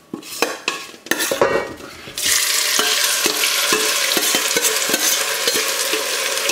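A metal spoon scrapes and clicks against a stainless steel bowl as sliced onions in their marinade are pushed out. About two seconds in, a steady sizzle starts suddenly as the wet onions land in hot peanut oil in an enamelled cast-iron pot, with light spoon taps over it.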